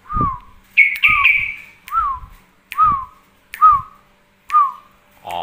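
Whistled bird call used as masteran: a short note that rises and falls, repeated six times about once a second, each with a dull low thump under it. A longer, higher whistle overlaps the second note.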